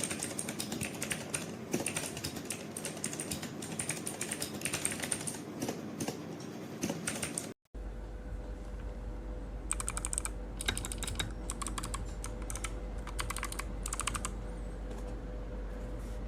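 Typing on a mechanical keyboard fitted with PBT XDA-profile keycaps: quick, dense key clacks, then after a short break about seven and a half seconds in, bursts of typing over a steady low hum.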